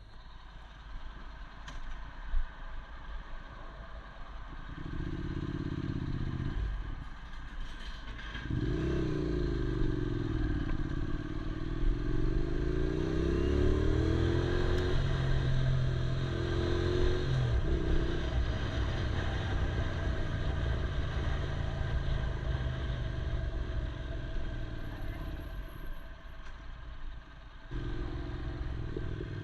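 Yamaha R6 inline-four sport motorcycle engine under riding, recorded on a GoPro mounted on the bike. The engine note climbs and drops in pitch through throttle changes, then settles and fades before picking up again near the end, over a steady rushing noise.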